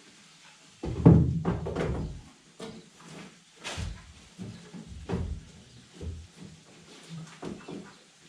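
Toolbox being shifted and set into place, a series of thuds and knocks: a cluster of heavy thumps about a second in, then lighter scattered knocks and clunks.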